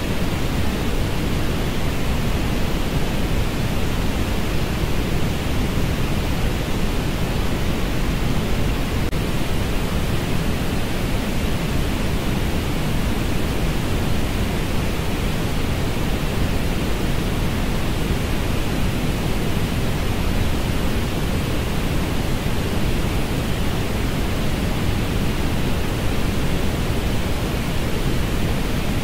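Steady synthetic orange noise: an even, unchanging rush, heavier in the lows and thinner in the highs.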